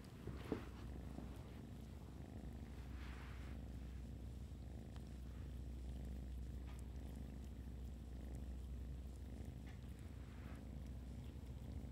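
Cat purring steadily in a low, even rumble, with a brief sharp click about half a second in.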